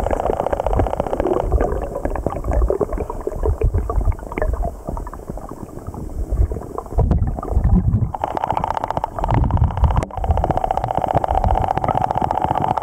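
Stream current heard through an underwater camera among waterweeds: muffled rumbling and gurgling. It turns steadier about two-thirds of the way in, with one sharp click about ten seconds in.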